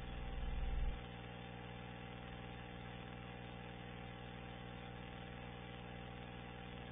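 Steady low hum with a buzz of many even tones. A deeper rumble swells during the first second and then cuts off suddenly.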